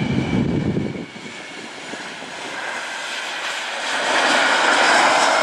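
Four-engine KC-135R Stratotanker's turbofan jet engines, a broad jet hiss with a steady high whine that grows much louder about four seconds in as the tanker passes along the runway. A low rumble ends about a second in.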